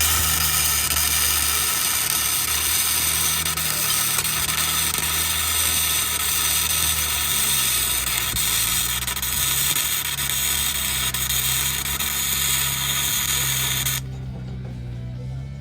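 Wire-feed welder arc crackling and hissing steadily as a bead is laid on a broken cast steering knuckle. It starts abruptly and cuts off about 14 seconds in, with music playing underneath.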